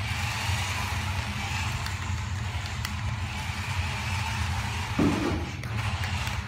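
Toy RC truck (Adventure Force Metal Racer) driving on concrete, its small electric motor and gears whining and swelling and easing as the throttle goes on and off. A brief lower sound comes about five seconds in.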